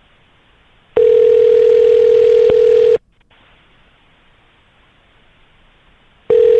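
Telephone ringback tone heard from the caller's end of the line: a steady tone about two seconds long, then a pause of about three seconds with faint line hiss, then the tone again near the end. It means the called phone is ringing and has not yet been answered.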